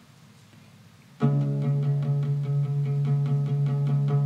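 About a second of quiet, then a nylon-string classical guitar comes in abruptly, played in quick even strokes at about four to five a second over a steady held keyboard chord, opening the song.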